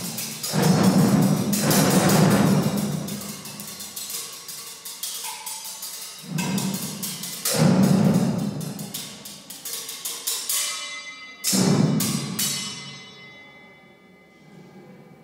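Improvised percussion amplified and processed by live electronics: a series of deep, drum-like hits that swell and decay, with fast rattling strokes over them. Near the end the sound thins out to a fading ringing tail.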